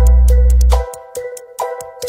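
Background music: a pitched, plucked-sounding melody with light percussive ticks, over a deep bass note that sounds for about the first second.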